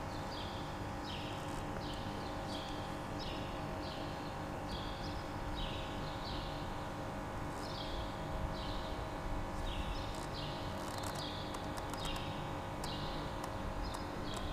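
Small birds chirping: a steady series of short chirps that fall in pitch, about one or two a second, over a faint steady hum. A few light clicks come near the end.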